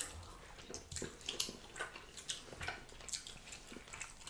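Wet eating sounds of fish in pepper soup being picked apart by hand and chewed: many short, irregular smacks and clicks.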